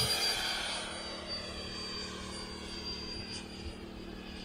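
The 12S electric ducted fan of a HSD Jets Super Viper RC jet whining steadily in flight, growing fainter as the jet moves away.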